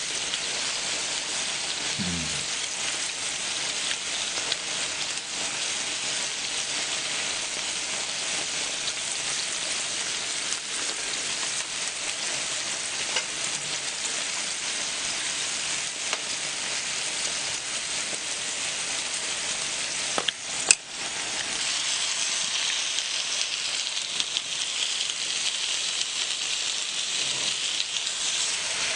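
Pork belly, pork neck and marinated meat sizzling steadily on a flat griddle. About two-thirds of the way through there is a sharp click, and after it the sizzle grows louder and hissier as marinated meat is spread on the hot plate with tongs.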